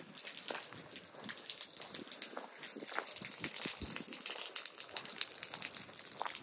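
Wet footsteps on a muddy, waterlogged lane, with splashing and irregular small ticks of water.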